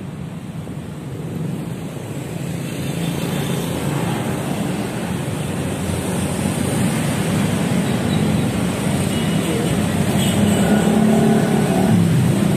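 Steady road traffic noise from passing cars and motorcycles, growing louder over the seconds. A motorcycle passes close near the end.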